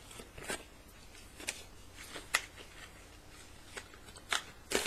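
Hands handling small objects and packaging while searching for a pack of AAA batteries: a series of light clicks and taps, about six, with two louder ones near the end.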